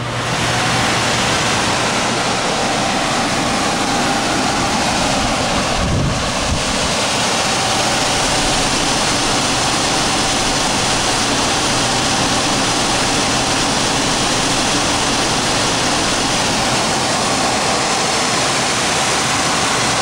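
Old furnace squirrel-cage blower fan running on high speed: a loud, steady rush of air that reaches full strength within the first second.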